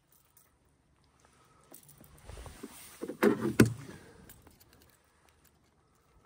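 Handling noise from unhooking a small speckled trout in a kayak: rustling of a rain jacket and gear with a few sharp knocks, loudest a little past three seconds in.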